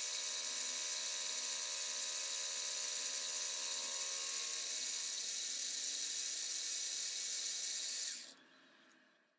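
Harbor Freight mini-mill spindle running steadily with a drill bit turning in a small brass gear blank, a steady high whine that cuts off about eight seconds in.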